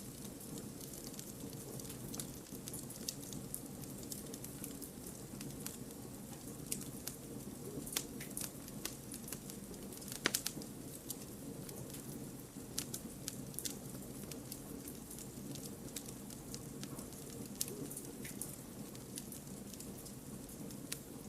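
Wood campfire burning: a steady low rush of flame under frequent sharp crackles and pops from the logs, with one louder pop about ten seconds in.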